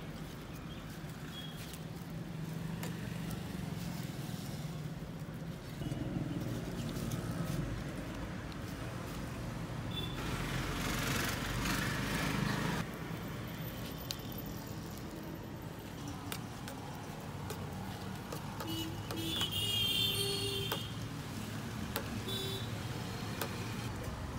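Street traffic noise with vehicles running and passing, steady throughout, and a louder swell of noise about ten seconds in that lasts a few seconds.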